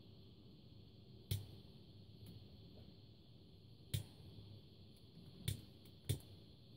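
Four sharp clicks of a handheld butane torch's piezo igniter being triggered, unevenly spaced, without the flame catching: the torch is out of gas.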